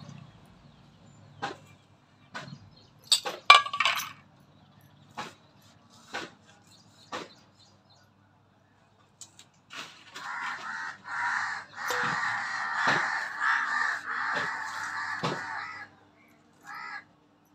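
A few sharp clicks and knocks while green chillies are cut against a fixed upright kitchen blade, then about six seconds of loud, harsh, repeated cawing from crows in the second half.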